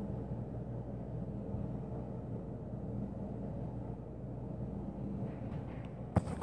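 Steady low indoor hum, with a couple of sharp knocks just after six seconds in.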